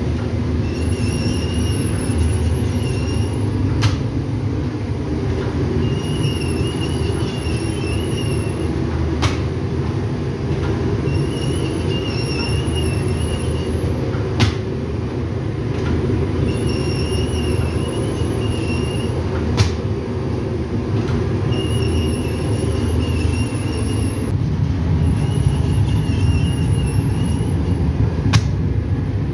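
Automated flatbread production line running: a steady low machine rumble. A wavering high squeal of about two and a half seconds and a sharp click each repeat about every five seconds as the machinery cycles.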